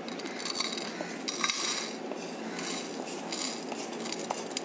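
Freshly dry-roasted whole spices, mostly coriander seeds and peppercorns, being tipped out of a kadai onto a plate. Two short rushes of seeds sliding out come about half a second and a second and a half in, followed by scattered small clicks as stray seeds land on the plate.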